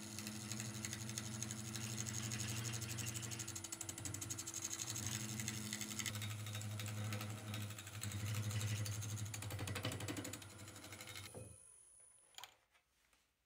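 Wood lathe running while a gouge cuts a spinning epoxy-resin and wood bowl blank: a steady motor hum under a continuous scraping of the cut. It cuts off suddenly near the end, followed by a single click.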